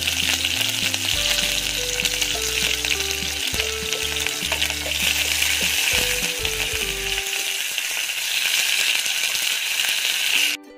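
Sliced red onions sizzling in hot oil with cumin seeds, frying for an onion-and-cumin tadka, stirred with a wooden spatula. The steady sizzle cuts off suddenly near the end.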